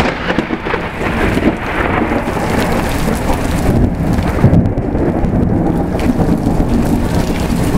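Loud thunder from a close lightning strike: a sharp crack at the very start, then continuous rumbling.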